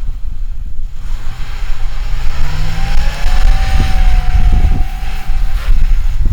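A vehicle engine revs, its pitch rising over a couple of seconds, with a whine over it. Heavy wind buffets the microphone.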